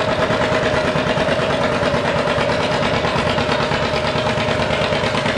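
A 1952 John Deere 60's two-cylinder engine idling steadily before its pull, with a steady whine over the engine.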